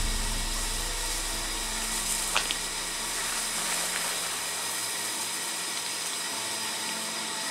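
Steady outdoor background hiss with a faint hum, and one faint tick about two and a half seconds in.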